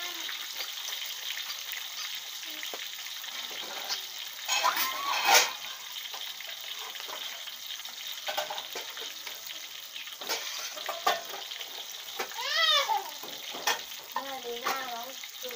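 Whole barramundi deep-frying in a wok of hot oil: a steady sizzle throughout. Over it a child's high voice calls out several times, loudest about five seconds in.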